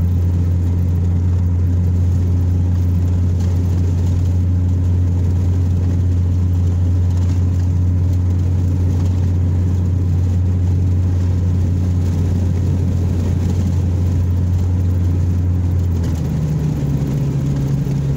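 Vehicle engine and road noise heard from inside the cab while driving: a steady low drone that steps up in pitch about two seconds before the end.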